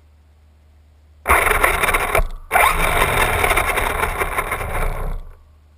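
Traxxas Bandit RC buggy's brushless motor driving the wheels, which spin in place and scrape against the ground while the car stays stuck. Two loud bursts of throttle: a short one about a second in, then after a brief break a longer one of about three seconds that cuts off suddenly.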